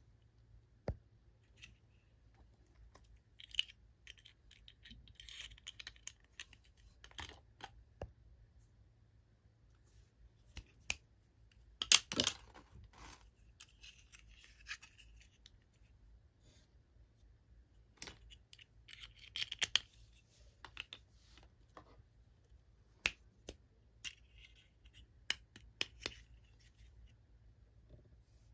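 Hands opening and handling small toy packaging: scattered sharp clicks and taps with short bursts of crinkling and scraping, the loudest cluster about twelve seconds in.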